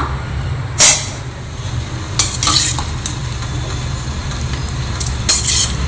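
Steel ladle scraping and clattering against a steel kadai while scooping out cooked tomato-onion chutney mixture: three sharp clinks, about a second in, about two seconds later and near the end, with quieter scraping between them. A steady low hum runs underneath.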